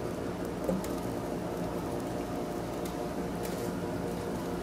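Coal forge blower running steadily, forcing air through the fire to bring the weld up to heat: a steady hum over a rush of air. Extra air is needed because a big clinker sits at the bottom of the fire.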